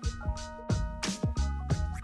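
Background music with a steady beat: regular drum strikes over a deep bass and held notes.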